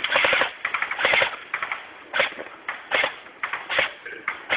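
Airsoft guns firing in several short bursts of rapid clicking shots, one burst after another.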